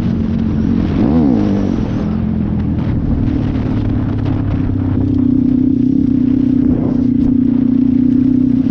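A 150cc YX-engined dirt bike running under way: a quick rev up and back down about a second in, then the engine held at a steady, louder note from about halfway on.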